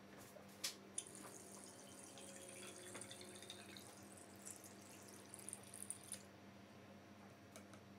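Faint trickle of wort running from a fermenter's plastic spigot through a plastic funnel into a glass bottle. Two sharp clicks come just before it starts, about a second in. It stops about six seconds in with a few small clicks.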